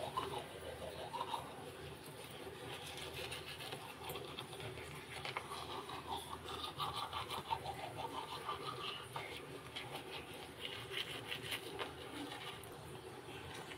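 Manual toothbrush brushing teeth: a steady scrubbing of quick back-and-forth strokes.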